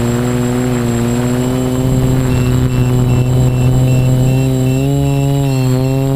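ArduCopter quadcopter's electric motors and propellers humming steadily in flight, heard close up from the onboard camera. The pitch wavers a little near the end.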